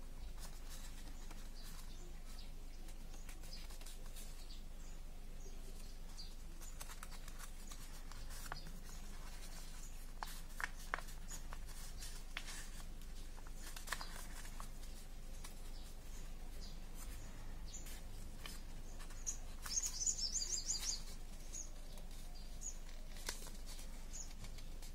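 A sheet of origami paper being folded and creased by hand: soft crinkling with scattered sharp clicks and ticks as the paper is pressed and bent. Late on there is a brief run of rapid, high-pitched chirps.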